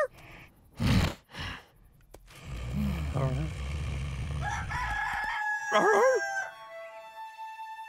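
A rooster crowing once, a long held call ending in a wavering drop, about five and a half seconds in. Before it come low, rough snores from a sleeping bull.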